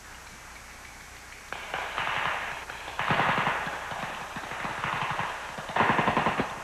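Rapid gunfire from several rifles and automatic weapons in overlapping bursts, starting about a second and a half in and loudest near the end: the volume fire of an infantry squad springing an ambush.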